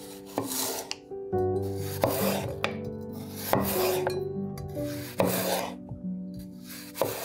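Chef's knife slicing through raw peeled potatoes on a wooden cutting board: a string of crisp rasping cuts, roughly one or two a second, each ending on the board. Soft background music with held notes underneath.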